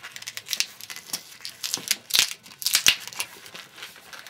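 A black 160 latex modelling balloon rubbing between the hands as it is twisted into pinch twists: a string of irregular scratchy rubbing noises, loudest about two and three seconds in.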